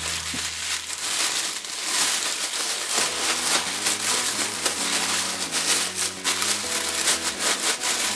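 Cellophane roasting bags crinkling and rustling as they are handled: a twisted bag of seasoned beef rib is slid into a second bag to make a double layer.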